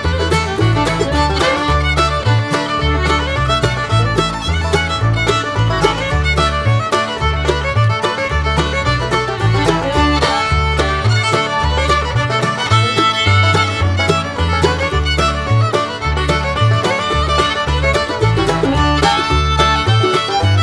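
Background music in a bluegrass style, with fiddle over a walking bass line and plucked strings.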